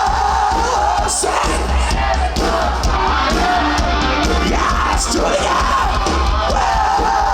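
Live rock band playing loudly, with a crowd yelling and singing along.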